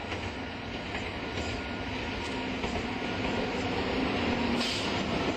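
Model train running past on a layout: a steady rumble of wheels on the track that slowly grows louder, with a brief brighter hiss near the end.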